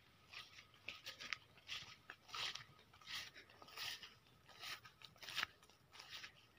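Faint footsteps crunching on dry ground and leaf litter, an uneven step about twice a second, with light rustling between.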